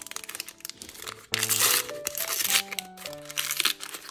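Plastic blind-bag packaging crinkling as it is handled and opened, loudest for about a second in the middle, over background music with held notes.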